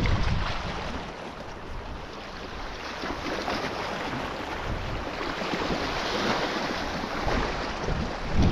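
Sea waves washing against the shore with wind buffeting the microphone, swelling louder at the start and again near the end.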